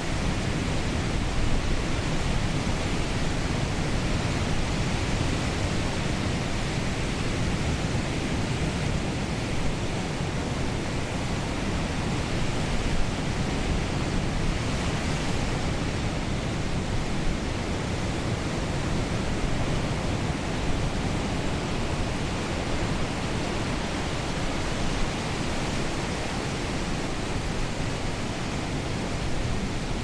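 Ocean surf and wind: a steady, even wash of noise with no single wave standing out.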